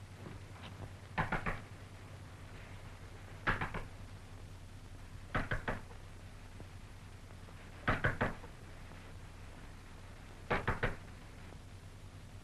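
Knocking on a wooden cabin door: five bouts of two to four quick raps, every two to three seconds, over a steady low hum.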